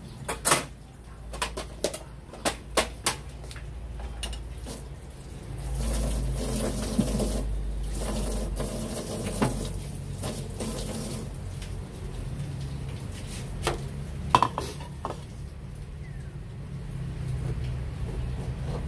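Dishes and kitchen utensils clinking and knocking as they are handled, several sharp knocks in the first few seconds and a couple more later. A few seconds of steady rushing noise sit in the middle.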